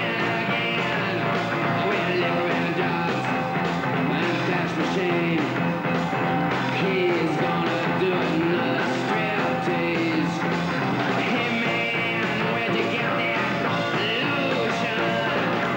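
Punk rock band playing, with a voice singing over the band in places.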